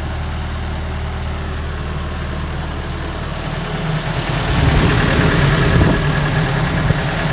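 Rig heater's Cat C4 diesel engine idling steadily. About four seconds in, the heater's blast of hot air from its outlet rushes across the microphone, and the sound gets louder.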